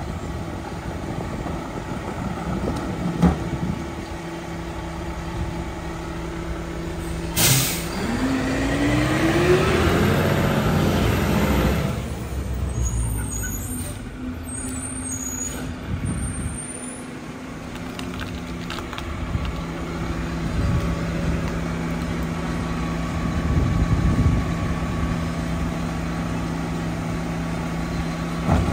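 Mack LEU garbage truck's diesel engine running, with a short air brake hiss about seven seconds in, then the engine revving up as the truck pulls away. In the second half it settles to a steady lower run.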